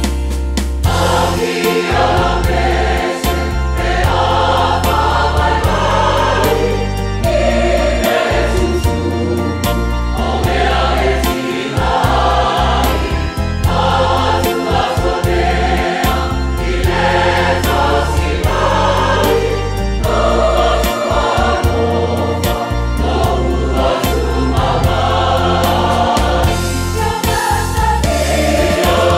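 Church choir singing a Samoan hymn in parts, over instrumental accompaniment with a strong, steady bass.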